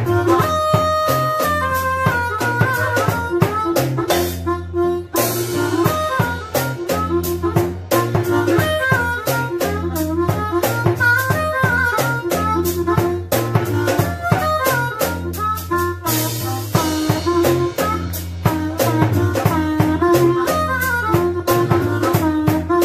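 Blues harmonica amplified through a handheld microphone, playing wavering, bent melodic lines over a band with a drum kit keeping a steady beat. Cymbal crashes ring out about five seconds in and again about sixteen seconds in.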